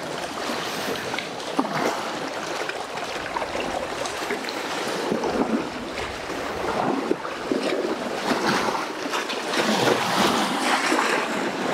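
Small wind-driven waves lapping and washing over a rocky lakeshore, a steady water noise with wind behind it.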